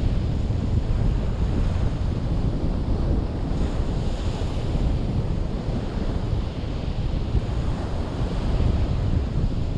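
Sea waves washing onto the shore, with wind buffeting the microphone in a steady low rumble; a brighter wash of surf swells up about four seconds in.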